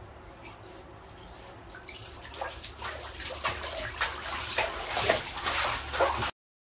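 Water splashing in a filled bathtub as a Shiba Inu moves about in it: a faint steady hum at first, then, from about two seconds in, a run of irregular splashes. The splashes cut off suddenly near the end.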